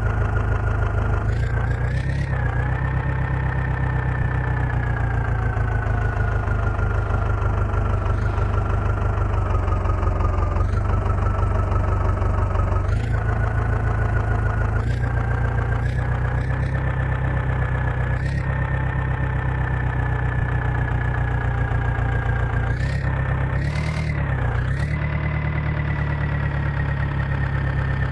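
Diesel engine running steadily, with a high whine over it and a scattering of short clicks and knocks.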